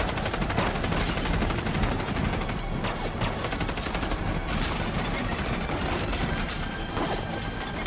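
Rapid gunfire, shot after shot many times a second with hardly a break, over a steady low rumble of battle.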